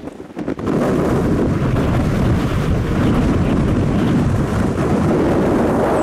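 Strong gusting wind buffeting the microphone with a loud, steady rumble; it drops briefly at the start, then blows on without a break.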